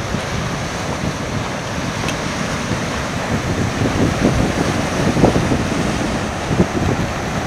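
Surf breaking and washing over a rocky shore, a steady rushing noise, with wind buffeting the microphone.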